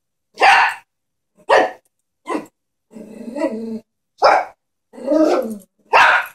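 Chihuahua barking: five short, sharp barks with two longer, lower drawn-out ones in between.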